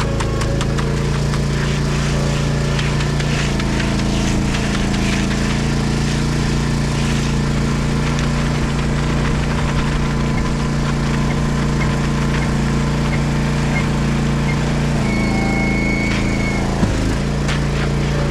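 Concrete mixer truck's diesel engine running steadily while the drum mixes the colored concrete, with scattered clicks and rattles in the first half. The engine note shifts slightly about fifteen seconds in.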